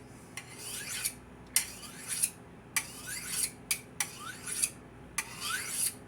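Steel kitchen knife blade drawn in quick repeated strokes along a sharpener, metal scraping on the sharpening surface: about nine strokes, each a short hiss with a faint rising ring, a little over one a second, with the blade held at a steep angle.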